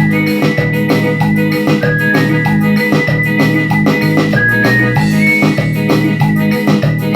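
Electronic keyboard music: a sustained organ-like lead melody, with notes that step and slide in pitch, over bass notes and a steady programmed beat.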